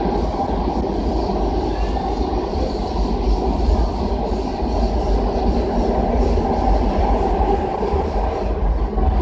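Kawasaki 7000-series Metro railcar running between stations, heard from inside the car: a steady, loud rumble of wheels and running gear.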